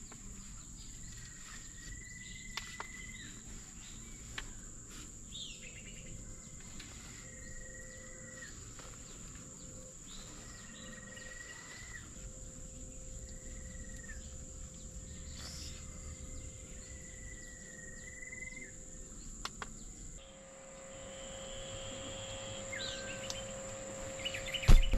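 A steady high-pitched insect drone, with a bird repeating a short rising whistled call every two to three seconds. A low steady hum comes in near the end.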